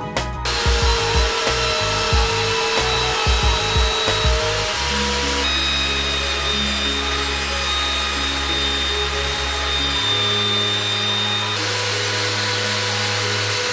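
Benchtop belt sander running with a steady hiss as a softwood block is sanded against its belt, starting about half a second in.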